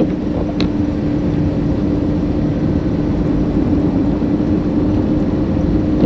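A car driving on a road: steady low rumble with a constant hum, and a couple of faint clicks near the start.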